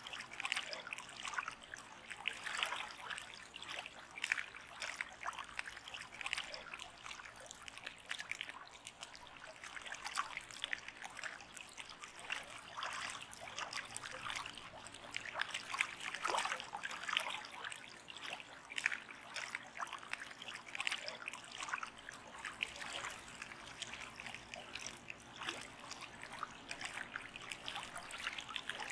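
Continuous trickling and babbling of running water, like a small stream, made up of many small irregular splashes.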